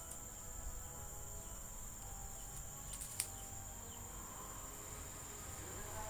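Steady high-pitched insect chirring, with a single sharp click about three seconds in.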